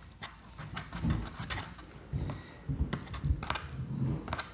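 A string of light, irregular taps and knocks from objects being handled and set down.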